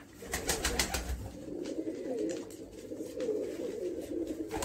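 A flock of domestic Malwai pigeons cooing, several low warbling coos overlapping throughout. A few sharp clicks come in the first second.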